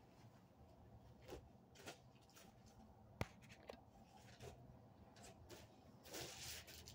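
Faint rustling and handling of clothes and packaging, with scattered small clicks, one sharp click about three seconds in, and a louder rustle near the end.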